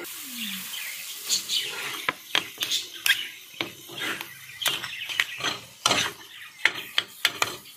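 Steel ladle and spatula clanking and scraping against an iron tawa in quick, irregular knocks as boiled potatoes and peas are mashed and stirred into the bhaji masala.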